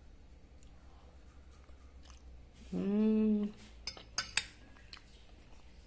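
A person eating: faint chewing, a short hummed 'mmm' about three seconds in, then a few sharp clinks of a metal fork against a ceramic plate.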